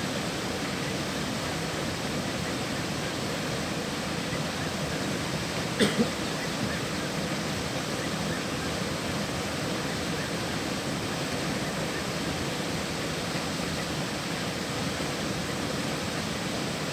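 Steady rushing of flowing river water, with two brief sharp knocks close together about six seconds in.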